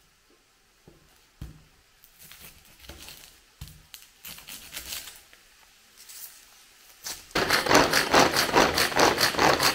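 A few light knocks and rustles from kitchen handling, then about seven seconds in a sudden loud sizzling with stirring: ground beef frying in a hot pan.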